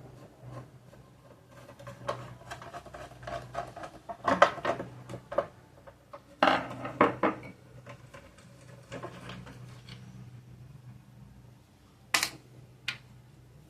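Small metal parts and tools clinking and tapping against the opened, jammed Elgin sewing machine as it is worked on by hand. The clicks come in irregular clusters, and there are two sharp knocks near the end.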